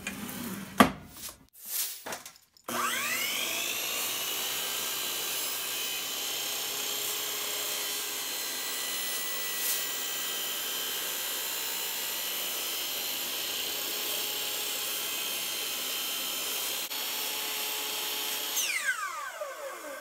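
Miter saw handled with a few knocks, then its motor spins up about three seconds in and runs with a steady whine while it cuts a slit halfway through a PVC pipe. Near the end the motor is switched off and winds down, its pitch falling.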